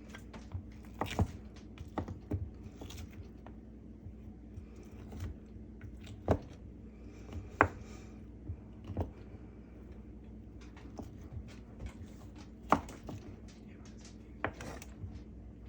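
Kitchen items being handled: irregular sharp clicks and knocks, the loudest about a second in, around six and seven and a half seconds, and near thirteen seconds, over a faint steady hum.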